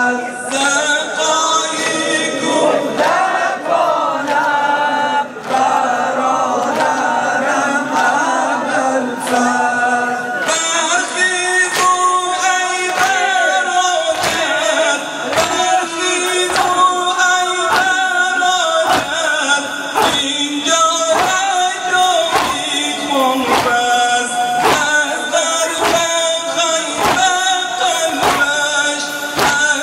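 A male reciter chants a Shia mourning lament (noha) over a microphone, and a crowd of men sings along. From about ten seconds in, a steady beat of many hands slapping chests (sineh zani) runs under the singing.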